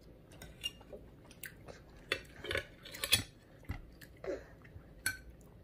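Eating at the table: a child's fork tapping and scraping on a plate, with chewing, as short scattered clicks that bunch together about two to three seconds in.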